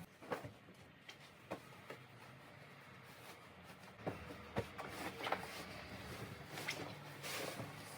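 Scattered light knocks and clicks, about half a dozen at uneven intervals, over faint rustling, with a denser rustle near the end.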